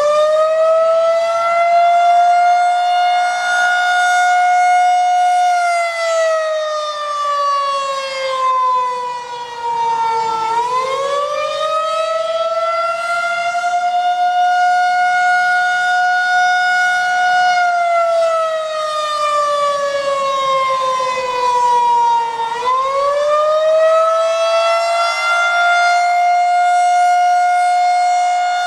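Federal Signal 2001-130 rotating electromechanical siren sounding an attack (wail) signal. Just after winding up, its single tone holds high, slowly sags, then climbs back up, twice, and the loudness swells and dips as the horn rotates.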